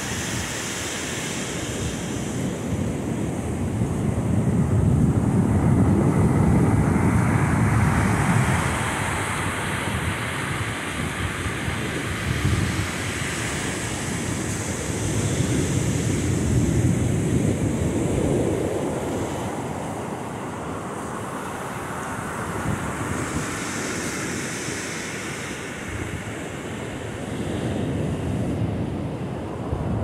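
Surf breaking and washing up a sandy beach in a steady hiss that swells and eases as waves come in, with wind buffeting the microphone.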